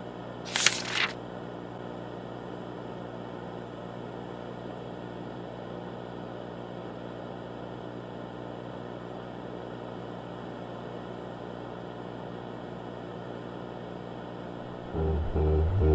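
Steady electrical hum with a hiss under it, like the noise of a VHS tape or broadcast signal. About half a second in, a short loud crackle of static. About a second before the end, a much louder low droning sound starts suddenly.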